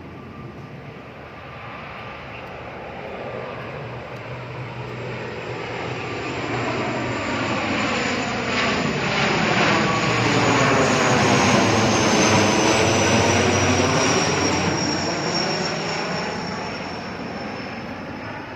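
Airplane flying over: its engine noise builds to a peak about two-thirds of the way through, then fades as it passes, with a high whine that slowly drops in pitch.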